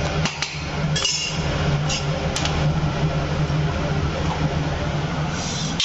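Chickpeas heating in hot salted sand in a steel kadhai over a gas burner: a steady low hum and hiss, with a few sharp clinks and ticks in the first couple of seconds.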